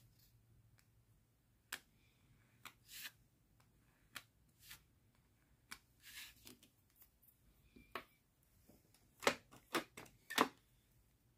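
Nail-stamping tools working on a metal stamping plate: gel polish being scraped across the engraved design, with scattered faint scrapes and taps. Three louder taps or scrapes come close together near the end.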